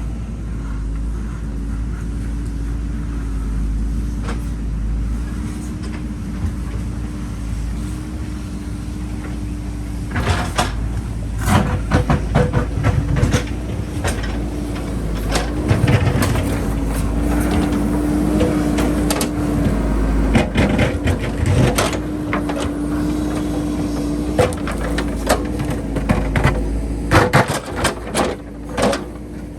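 JCB backhoe loader's diesel engine running steadily, and from about a third of the way in, many short clanks and scrapes of the digging bucket working against rock and earth.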